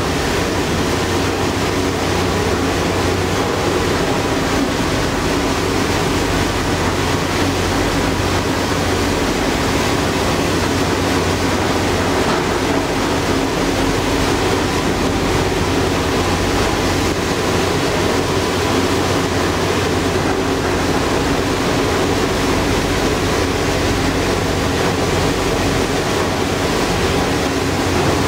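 Passenger ferry under way: its engine drones steadily beneath the rush of water from the hull and wake. The sound holds at one even level throughout.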